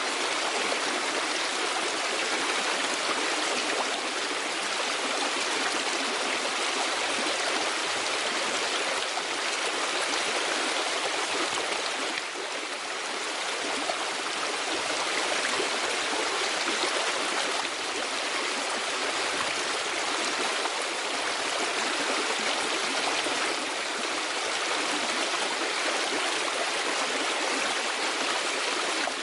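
Steady rushing of flowing stream water, an even hiss with no separate splashes or other sounds standing out.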